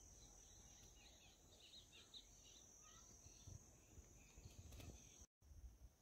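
Near silence: a faint, steady, high insect drone, with a few faint bird chirps in the first few seconds.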